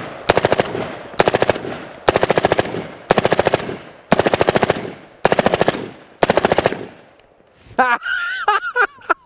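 Full-auto M4-type carbine fitted with a Rugged Suppressors Razor 7.62 compact suppressor, firing seven short bursts about a second apart, each a rapid string of suppressed shots. Near the end a man laughs.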